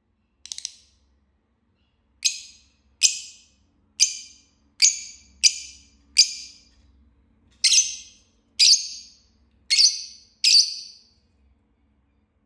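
Fischer's lovebird giving a series of short, shrill chirps, about one a second: a faint one at first, then ten loud ones.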